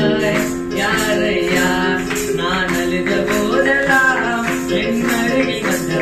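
Tamil Christian worship song: an electronic keyboard plays held chords over a steady beat, with a man singing the melody.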